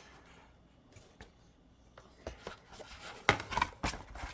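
Hands handling the packaging of a DVD box set: quiet scattered taps, then a handful of sharp clicks and knocks in the second half.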